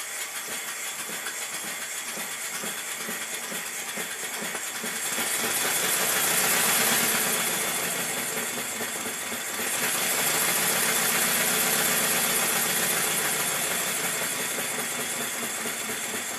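Stuart Score twin-cylinder model steam engine running on compressed air, its exhaust beating in an even rhythm. About five seconds in it speeds up and the beats merge into a loud, steady hiss, which briefly eases and then picks up again.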